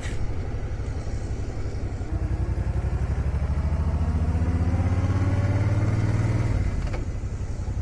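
Suzuki C90 Boulevard's V-twin engine running as the cruiser rides along. Its note climbs steadily as it accelerates from about two seconds in, then drops off suddenly near the end as the throttle is eased.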